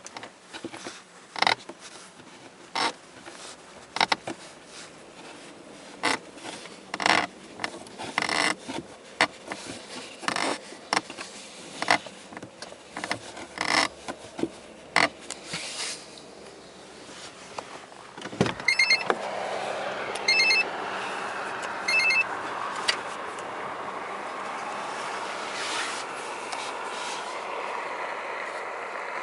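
Lada Granta's dashboard panel creaking and clicking in short irregular snaps inside the cabin. Past the middle a steady cabin noise comes up, with three short high electronic beeps soon after.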